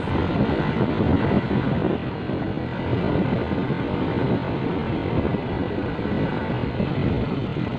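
Motorcycle running along a road, a steady mix of engine and rushing road noise.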